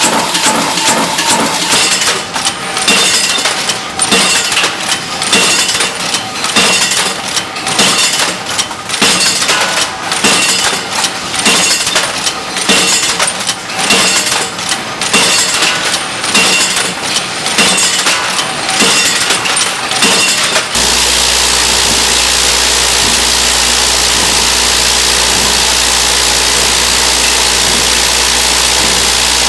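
Screw-making machines in a factory working with a rapid, repeated metallic clatter of knocks and clinks. About twenty seconds in it cuts off suddenly to a steady machine hum.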